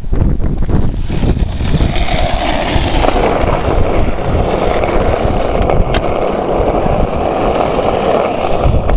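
Skateboard wheels rolling over rough asphalt, a steady gritty rumble with wind buffeting the microphone and a few sharp clicks from the board.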